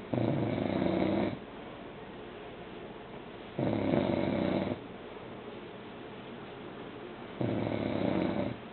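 A man snoring in deep sleep: three loud snores, each about a second long, coming steadily about every three and a half seconds.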